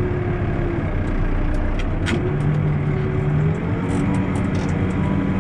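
Backhoe loader's diesel engine running under load, heard from inside the cab, its note shifting and rising a little partway through as the machine is driven. A sharp click sounds about two seconds in.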